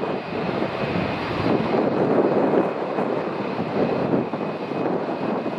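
Boeing 787-8's Rolls-Royce Trent 1000 turbofans running at high thrust on the takeoff roll, a loud steady roar with a faint high whine above it, heard from behind the aircraft.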